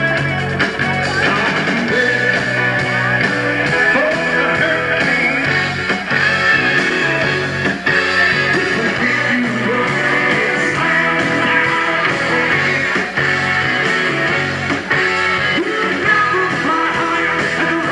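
Live rock band playing loudly: electric guitar, bass and drums under two saxophones playing together, with sustained held notes.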